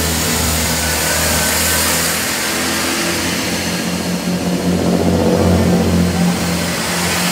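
Great Western Railway Hitachi bi-mode intercity train's underfloor diesel engines running as the coaches move past close by. A steady low engine drone with a pulsing throb, growing louder about four seconds in.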